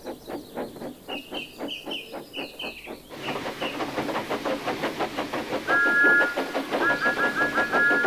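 Thomas the Tank Engine's steam chuffing in a steady, even rhythm, with high short chirps over the first few seconds. The chuffing grows louder about three seconds in as the engine approaches. A two-tone whistle then sounds once and follows with a quick run of short toots.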